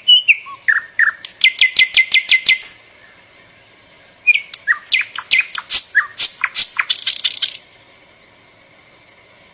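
Mockingbird (cenzontle) singing in phrases of repeated notes: sliding whistles, then a fast run of sharp, clicking notes. After a short pause it sings another run of varied repeated notes, and it stops about three quarters of the way through.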